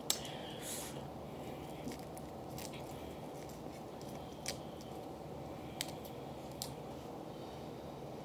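Quiet eating sounds: a handful of soft clicks and squishes as shrimp and crab are pulled apart by hand and chewed, over a steady low room hiss.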